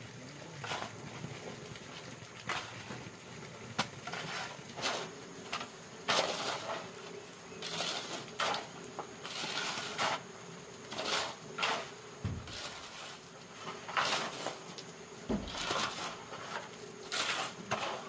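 Repeated short scraping strokes, roughly one every second, with two dull thumps about twelve and fifteen seconds in.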